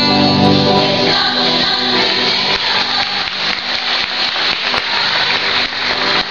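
A children's school choir's song with acoustic guitar accompaniment; a strummed guitar chord rings through the first second, then the sound turns denser and noisier.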